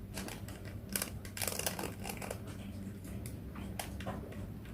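Plastic 3x3 Rubik's cube being handled and its layers twisted: irregular short clicks and scrapes, busiest about a second and a half in, over a faint steady hum.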